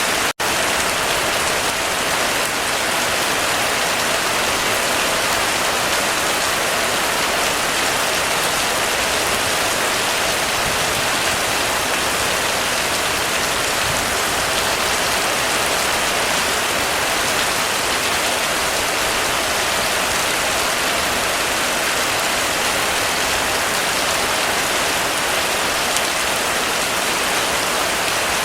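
Heavy rain falling steadily on a roof, a dense, even patter with one split-second break near the start.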